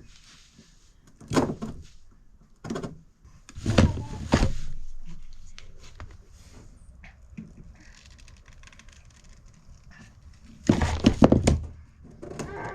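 Several separate knocks and thumps in a small room, about one every second or so early on, then a quick cluster of them about eleven seconds in.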